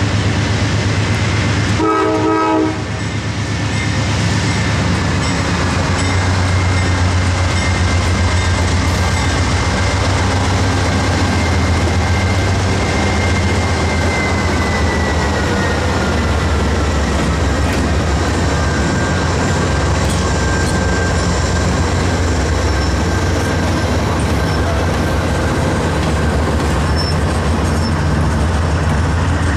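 Norfolk Southern freight train passing close by: a short horn blast about two seconds in, then the locomotives' diesel engines drone low as they go by, followed by the steady clatter of double-stack intermodal container cars rolling past. A faint high wheel squeal slides down in pitch partway through.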